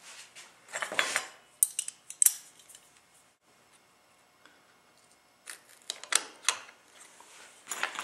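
Handling noises: short scrapes and sharp metallic clicks, in one group about a second in and another from about five and a half seconds on, with a quiet stretch between.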